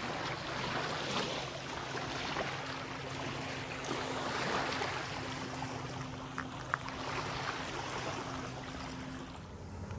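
Lakeside ambience: a steady hiss, with the faint steady hum of a distant motorboat engine from about two and a half seconds in until shortly before the end.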